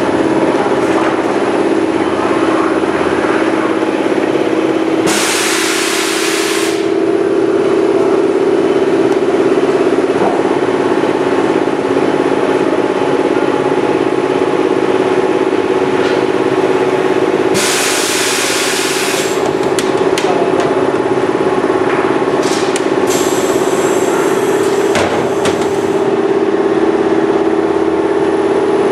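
Spiral-seam steel duct forming machine running with a steady loud hum. Twice a burst of hiss lasting a second or two cuts in, about 5 and 18 seconds in, and a few sharp clicks and knocks come later.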